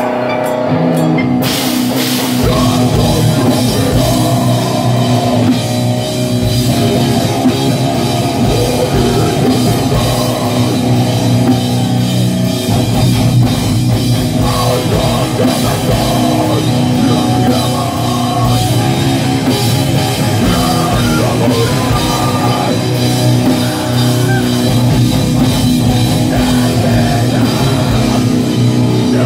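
Live groove metal band playing: distorted electric guitars and bass with a drum kit, the cymbals and drums coming in after a second or two and driving on.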